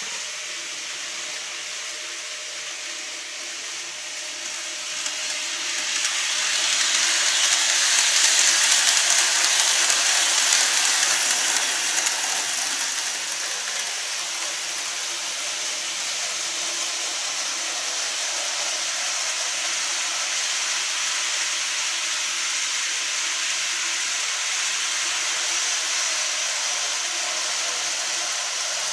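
N-gauge Keikyu electric train models running on layout track: a steady hissing rumble of motor and wheels that grows louder to a peak around eight to eleven seconds in, then eases to a steady level.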